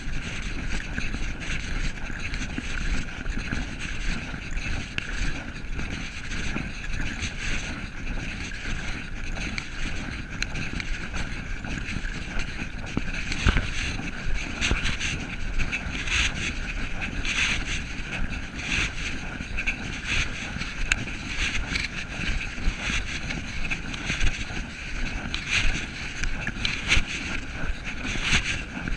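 Walking noise picked up by a camera carried along a trail: a steady rushing with irregular scuffs, rustles and knocks from the footsteps and the jostling camera.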